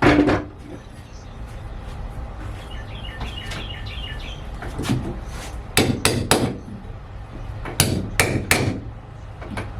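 Hammer strikes on metal: a single blow, then a quick run of four blows, then three more near the end.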